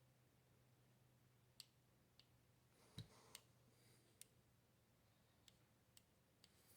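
Faint, scattered small clicks of a red/green dot sight and its button-cell batteries being handled, about eight in all. The loudest, about three seconds in, comes with a light knock.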